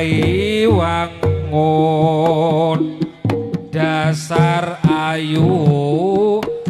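Live jaranan music from a Javanese gamelan ensemble: a high, wavering melody in long held notes over hand-drum strokes and a steady low tone.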